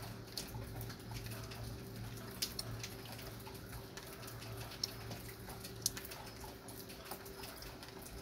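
Light rain falling: a soft even hiss with a few sharp ticks of single drops landing close by, over a faint low steady hum.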